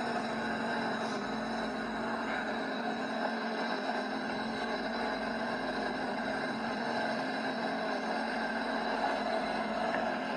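Sea-Doo personal watercraft engine running at a steady speed, mixed with wind and water noise, holding an even level without rising or falling.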